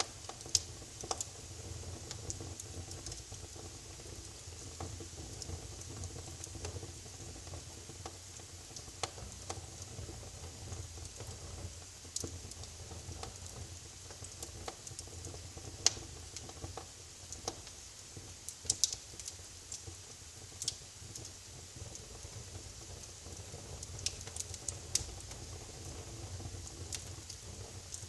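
Wood fire crackling in a fireplace: scattered sharp pops and snaps at irregular intervals over a low, steady rumble of burning.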